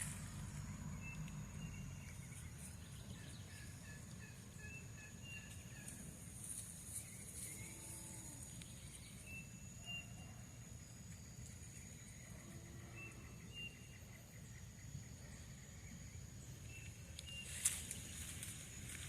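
Countryside bird chorus: several birds give runs of short, high repeated chirps over a steady high insect drone. A low call comes twice, in the middle and later on, and a single sharp click sounds near the end.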